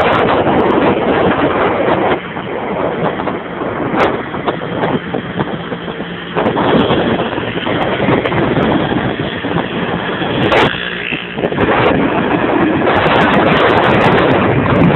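Wind rushing over the microphone of a moving Vespa scooter, with the scooter's engine and road noise underneath. The rush eases about two seconds in and picks up again past the middle.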